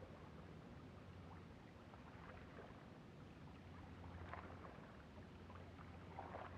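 Near silence, with a few faint ticks.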